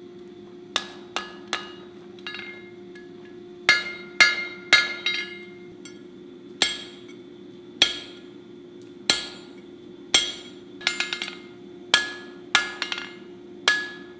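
Blacksmith's hammer striking steel on an anvil, about fifteen ringing blows at an uneven pace, some in quick doubles and triples. A steady low hum runs underneath.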